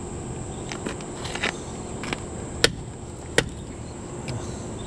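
Scattered sharp metallic knocks and clicks, two louder ones near the middle, from a rusted, corroded muzzleloader rifle being worked and knocked by hand to break its seized action open.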